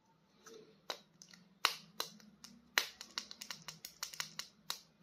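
Small plastic action figure and its packaging handled: sharp, irregular clicks and taps, starting about a second in and coming several times a second.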